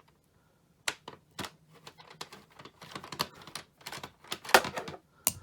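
Irregular plastic clicks and knocks from the parts of a Hoover Elite upright vacuum being handled and taken apart, with a couple of louder knocks near the end.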